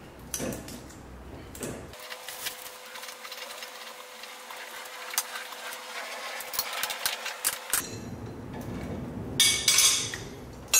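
Hand tools and steel suspension and brake parts clicking, rattling and clinking while they are fitted and bolted back onto a front wheel hub, with a few louder metal clanks near the end.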